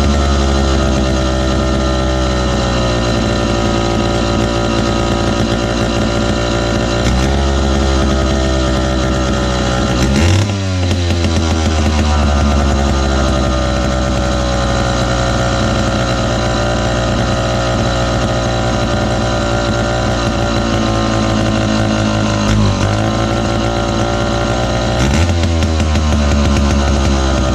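Lancaster Pump 655 chainsaw's two-stroke engine running steadily on the bench. Its speed shifts up and down a few times, most clearly about ten seconds in and again near the end.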